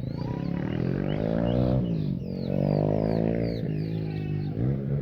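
Three or four long, low animal calls in a row, each drawn out for a second or two and rising and falling in pitch. A mockingbird's short chirps sound faintly above them.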